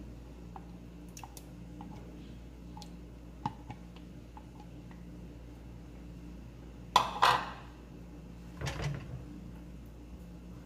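Kitchenware handling: light taps and clicks of a silicone spatula scraping sauce from a ceramic bowl into a frying pan, then two louder clatters about seven and nine seconds in as the bowl is put down and stirring begins, over a low steady hum.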